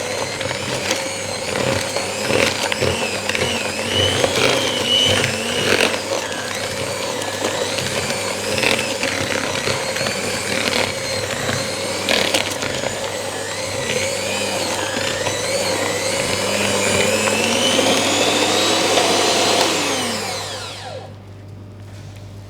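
Electric mixer running, beating cookie dough with pieces of toffee popcorn until it is combined. Its pitch rises and falls, with scattered knocks, and the motor winds down and stops near the end.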